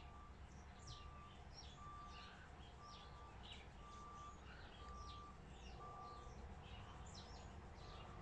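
Near silence with faint birds chirping in the background, and a short steady note repeating about once a second.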